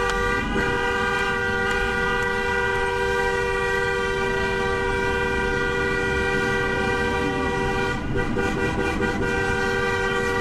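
A vehicle horn held down without a break, a steady two-note blare over the rumble of traffic, in a convoy of honking vehicles.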